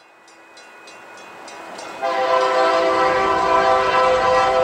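Locomotive air horn on an approaching Union Pacific freight led by an EMD SD70M, starting suddenly about two seconds in and holding one steady chord of several notes. Before it, faint rapid dinging, about three strikes a second, under a low rising rumble.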